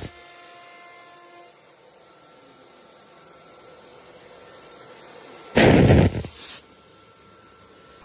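ATC CNC router at work: a faint steady machine hum, with a few steady tones that stop within the first second and a half. About five and a half seconds in comes a loud rush of noise lasting about a second.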